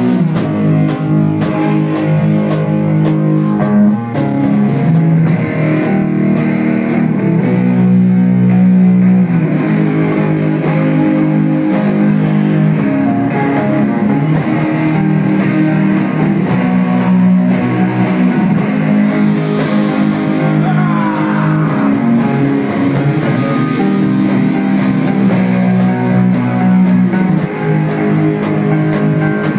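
Stoner rock band playing: electric guitar riffs over bass guitar and a drum kit, loud and continuous.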